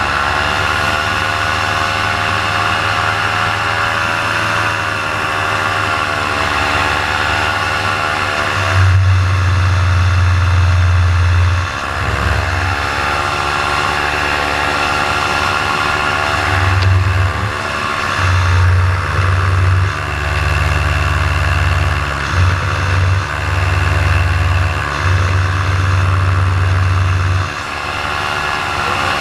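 Paramotor engine running in flight, its pitch wavering and its low throb surging in and out irregularly from about nine seconds in. The engine is bogging and losing power mid-flight.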